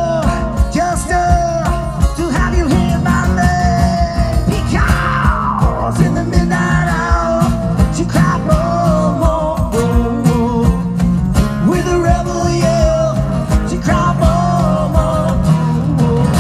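Live rock band playing, with a steady drum beat under pitched lines that slide in pitch now and then.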